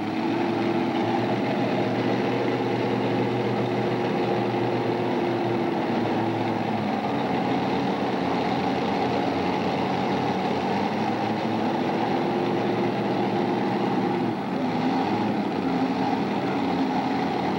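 Multi-engine modified pulling tractor's engines running at a steady low speed as it creeps forward to tighten the sled chain, with a brief dip in pitch about three-quarters of the way through.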